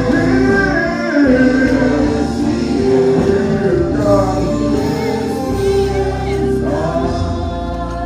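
Church choir singing a gospel song with instrumental accompaniment.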